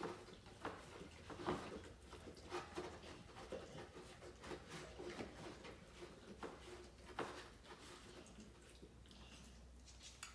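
A dog eating from a bowl: faint, irregular smacking and clicking.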